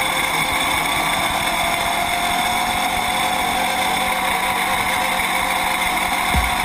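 Sportbike engine and exhaust running at a steady high speed while riding, the note rising slowly and easing slightly near the end.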